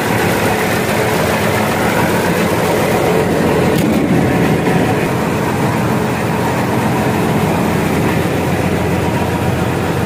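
Diesel engine of a Laverda M132 combine harvester running steadily at idle.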